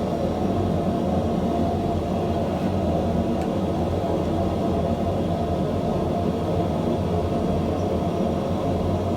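A steady low roar that holds at a constant level throughout, with no strikes or breaks.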